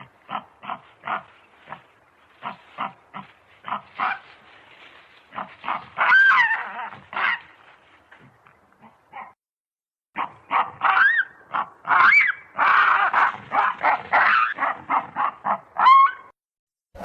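Baboon calls: rapid repeated barking grunts, about three a second, breaking into shrieks that rise and fall in pitch. After a short pause about halfway through, the grunts and shrieks come back louder and closer together.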